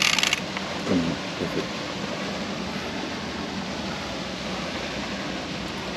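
The tail end of a big Wels catfish splashing at the surface beside the boat, stopping about half a second in, then a steady rushing noise.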